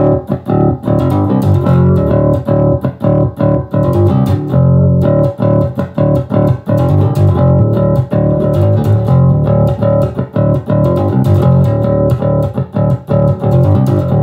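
Electric bass (Jackson JS1M Concert Bass in Drop D) played fingerstyle through a Fender Rumble 25 V3 combo amp with its overdrive engaged, a loud riff of many quick notes.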